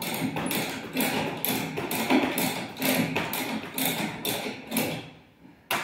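The Renault Trafic's hand-cranked jack being wound up to lift the van, the crank clinking and rasping about twice a second. It stops about five seconds in, followed by one sharp click.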